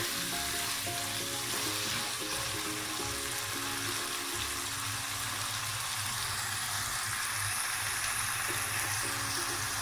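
Beef keema sizzling steadily in oil in a wok over a high gas flame, the final frying stage in which the oil separates from the mince, with soft music behind it.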